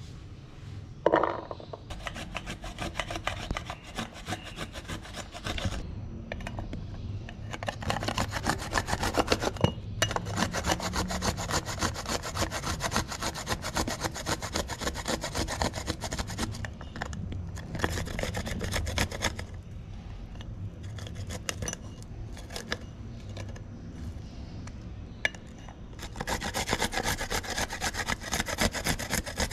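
Garlic cloves rubbed across a flat stainless-steel hand grater: rapid rasping strokes in several runs, with pauses between them.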